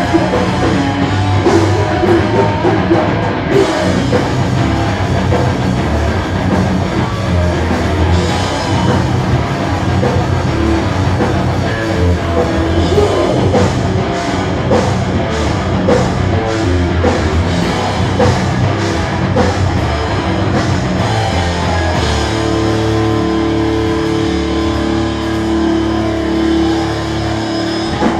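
Hardcore band playing live and loud: distorted electric guitars, bass and a pounding drum kit. From about 22 seconds in, a steady held note rings out over the drums.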